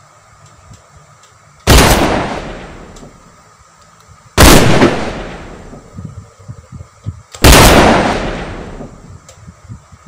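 Three gunshots about three seconds apart, each a sharp, loud crack with a long fading tail, laid in as sound effects for a handgun muzzle-flash effect shot. Faint clicks and rustles can be heard between the last two shots.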